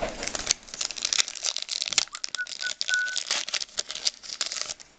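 Trading cards being flipped through by hand, a dense run of quick crisp clicks and paper rustles as each card slides off the stack. About halfway, three short high whistled notes sound at one pitch.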